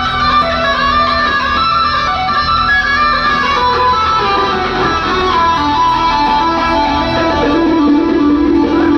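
Live amplified rock music: an electric guitar plays a melodic lead of held notes that step downward, with a lower part growing louder near the end.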